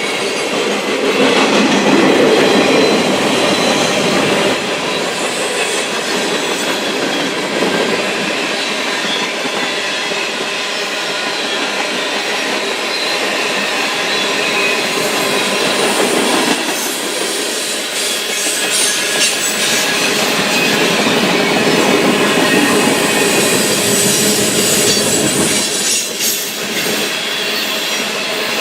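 Freight cars of a passing train rolling by, steel wheels on the rails making a continuous rumble and clatter with thin, steady squealing tones from the wheels.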